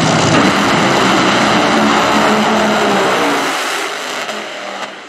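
Two Top Fuel dragsters launching side by side, their supercharged nitromethane V8 engines at full throttle. The sound is very loud and dense, then thins and fades over the last second and a half as the cars run away down the track.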